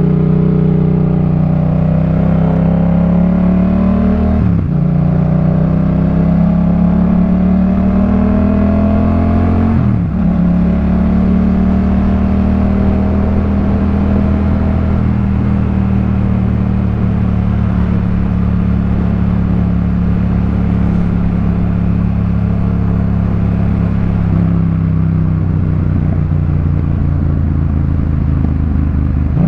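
2018 Yamaha MT-07's parallel-twin engine through a Jeskap K4 full exhaust, accelerating with revs rising and two quick upshifts about four and ten seconds in. It then holds a steady cruise, and the revs drop off near the end.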